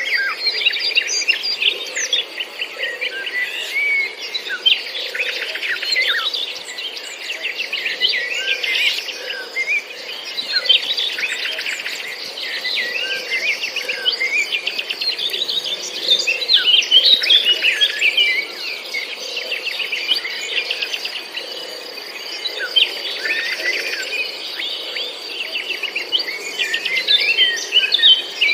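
Several garden birds chirping and trilling, with many short calls overlapping continuously, over a steady high-pitched hum.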